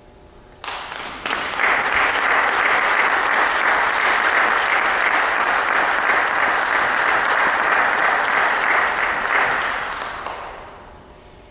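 Audience applauding at the end of a piece: a few claps start about half a second in, swell to full applause within a second, hold steady, then die away near the end.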